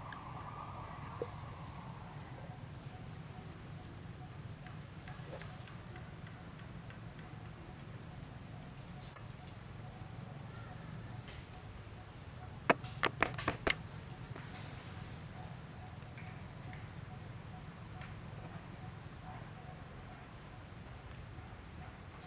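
Quiet outdoor ambience: an insect chirping in short rapid runs of high pulses over a low steady hum, with a quick run of about five sharp clicks near the middle.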